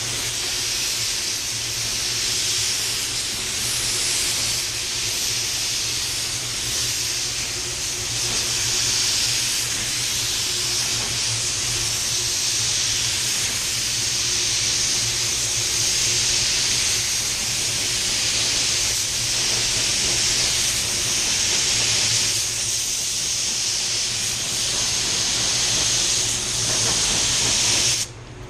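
Iwata WS-400 spray gun with a 1.4 mm tip hissing steadily as it sprays clear coat at about 35 PSI; the air cuts off suddenly near the end.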